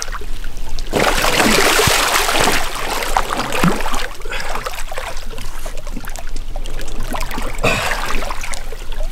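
Shallow water splashing and sloshing as a large blue catfish is held by hand and eased back in for release, with a loud burst of splashing about a second in and a shorter one near the end.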